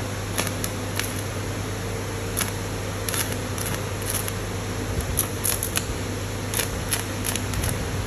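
Stick (SMAW) arc welding at about 80 amps: irregular crackles and pops of the arc as tack welds are struck, more frequent from about three seconds in, over the steady hum of the inverter welding machine.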